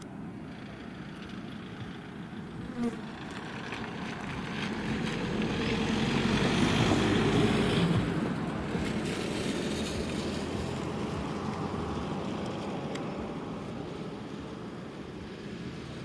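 A road vehicle passing the crossing: its engine and tyre noise builds over a few seconds, is loudest about seven seconds in, then fades away slowly.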